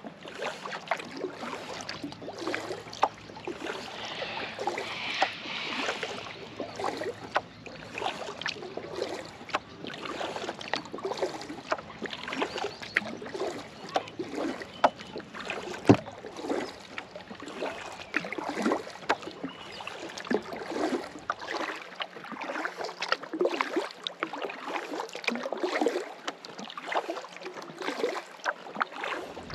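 Kayak paddle strokes in the water: irregular splashes and drips against a steady wash of moving water.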